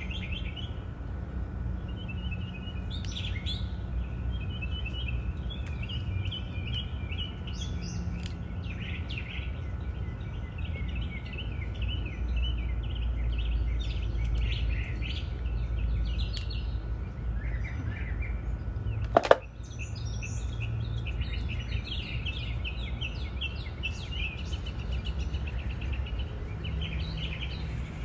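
Small birds chirping and twittering continuously over a steady low rumble, with one sharp click about two-thirds of the way through.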